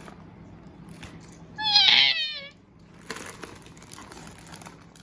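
A high, wavering vocal squeal lasting under a second, about two seconds in, followed from about three seconds in by faint rustling and crinkling of packaging as the lucky bag is opened.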